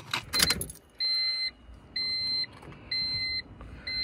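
Honda Civic's interior warning chime beeping steadily, about once a second, each beep a short two-pitched tone, after a brief clatter at the start.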